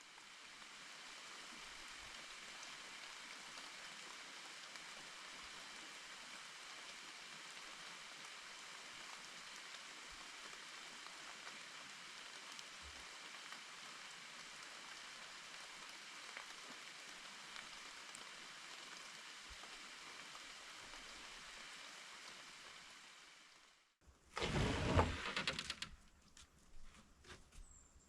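A steady, even hiss of water, fading in at the start and fading out about 24 seconds in. Then a loud sudden knock-like clatter follows about a second later.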